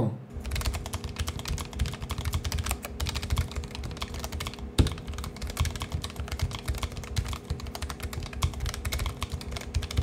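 Fast, continuous typing on a Keychron K1 low-profile mechanical keyboard: a dense run of key clicks with no pauses, one sharper clack about halfway through, played as a sound test of its switches.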